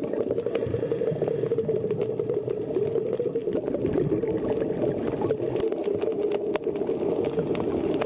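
Underwater ambience picked up through a camera housing: a steady, muffled, low rushing rumble with faint scattered clicks.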